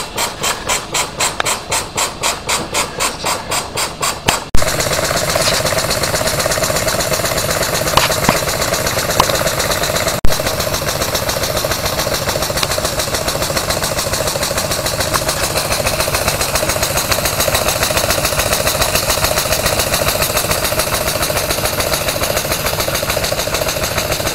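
Small model poppet-valve steam engine running at about four to five even beats a second, still short of steam pressure to get its revs up. About four and a half seconds in the sound cuts sharply to a faster, steadier mechanical running with steam hiss and a few light clicks.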